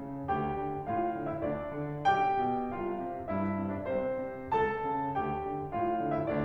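Slow background piano music: notes and chords struck about once a second and left to ring.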